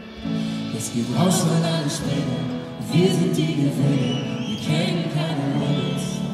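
Live unplugged band music: piano, upright bass and drums under male and female singing voices. The vocals come in about a second in.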